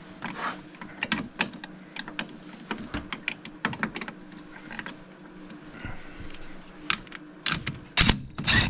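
Irregular metallic clicks and knocks of hand tools and hardware against a snowmobile's rear suspension, with a few louder knocks near the end as a cordless power tool is brought up to the shock bolt.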